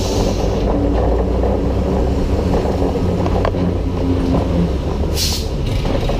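Vintage electric tram, a 1911 Hurst Nelson car, running along street track, heard from its open front platform: a steady low rumble of wheels on rails and the running gear. A short hiss of air cuts in about five seconds in.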